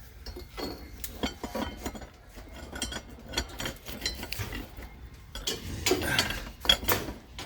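Steel mounting bracket and bolts for a roof hydrant being handled: irregular metallic clinks and knocks, busier near the end.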